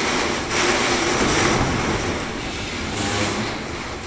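Hurricane wind gusting with driving rain, a loud rushing noise that surges about half a second in and again around three seconds, with wind buffeting the microphone.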